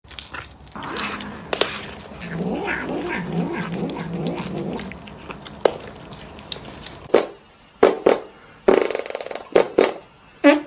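A domestic cat yowling in a long, wavering call for several seconds. About seven seconds in, a string of short, sharp knocks follows.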